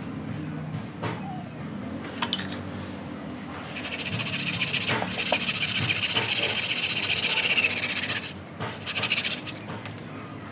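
A small hand tool scrubbed rapidly against the bark of a sanh nam điền (Ficus) bonsai stump to clean it, a dry scratchy rubbing that starts about four seconds in, runs for about four seconds, and comes back briefly about a second later.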